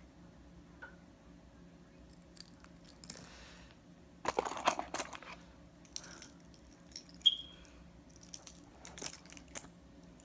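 Hands handling and sorting through metal dog tags out of sight: a burst of rustling about four seconds in, then scattered clicks and one short, high clink.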